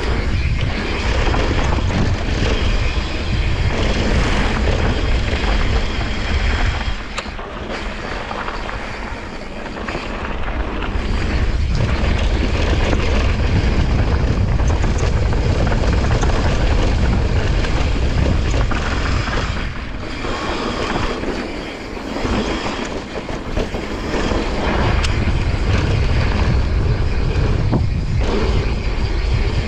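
Wind rushing over a GoPro action camera's microphone during a fast mountain bike descent, mixed with the tyres crunching on a dry dirt trail and the bike rattling over bumps, heard as many quick knocks. The rush dips twice, around seven to ten seconds in and again around twenty to twenty-four seconds in.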